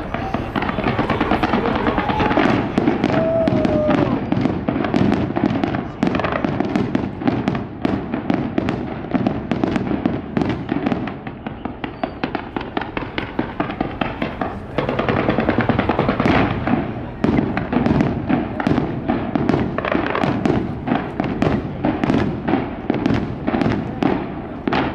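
Fireworks display: a dense, rapid barrage of bangs and crackling reports, easing briefly a few times.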